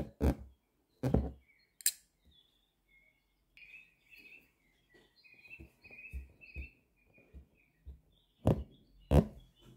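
Sharp pops and taps of an embroidery needle punching through fabric stretched tight in a hoop, with thread drawn after it, clustered near the start and near the end. In between, a small bird chirps over and over, short high calls about three a second.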